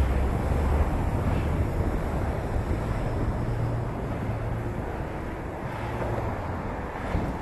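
Steady low rumble of wind on the microphone of a bicycle-mounted camera while riding, mixed with the hiss of street traffic on a busy road alongside.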